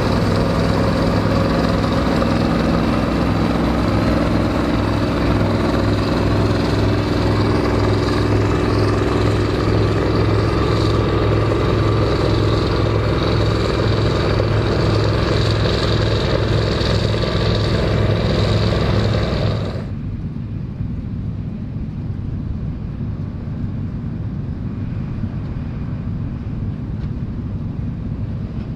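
Vintage Dronningborg D2600 combine harvester running steadily under load while harvesting barley: a steady engine drone with the rattle and whir of its threshing machinery. About two-thirds of the way through, the sound suddenly turns quieter and duller, leaving mostly a low rumble.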